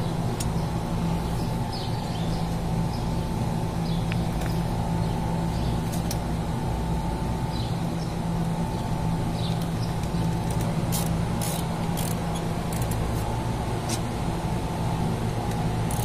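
Steady hum of running machinery, holding several constant tones, with a few faint clicks and taps.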